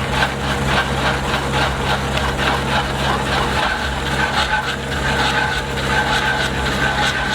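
Skid steer's diesel engine running steadily, with a rapid, even chatter of about four strokes a second over it as a stump planer on an auger drive cuts into a stump.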